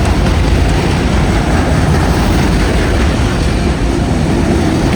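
Union Pacific freight train's cars rolling past: a loud, steady rumble of wheels on rails.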